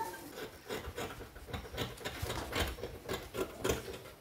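Scissors cutting through a stiff, crinkly sheet of paper gum interfacing, with the sheet rustling as it is handled: a run of irregular snips and crackles.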